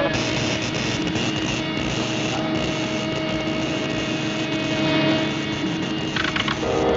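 Steady mechanical engine-like roar, a sound effect from a 1940s animated cartoon soundtrack, with faint orchestral score underneath. Louder held musical tones swell in near the end.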